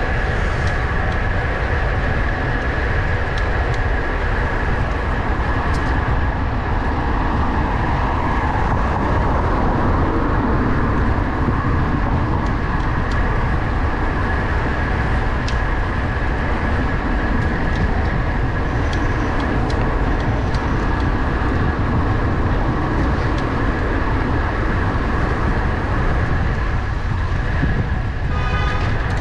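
Wind buffeting the microphone of a bicycle-mounted camera while riding in city traffic: a steady, loud rumble mixed with the sound of motor vehicles. A brief pitched tone sounds near the end.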